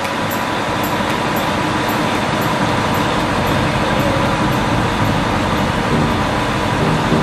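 Diesel engine of heavy earth-moving machinery running steadily.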